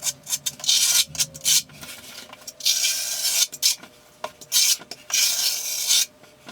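Steel V-notch trowel scraping polymer-modified thinset across a shower floor's mortar bed: a few quick clicks, then about four long scraping strokes as the thinset is spread.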